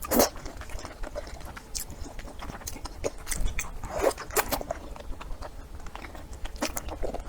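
Close-miked eating: a person biting and chewing food, with irregular sharp crunches and clicks, the loudest just at the start and another cluster about four seconds in.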